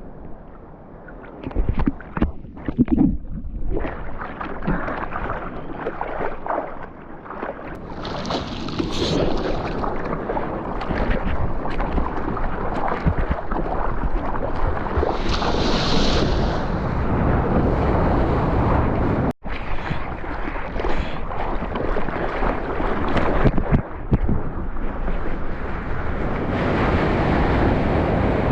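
Seawater rushing and splashing around a surfboard, with wind buffeting the GoPro's microphone. The noise builds after a few seconds and stays loud, with a brief cut-out about two-thirds of the way through.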